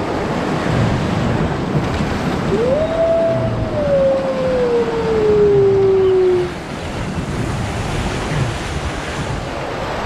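Rushing, churning white water around a circular river rapids raft, with wind on the microphone. A little over two seconds in, a single loud long tone rises quickly, then slides slowly down for about four seconds before stopping.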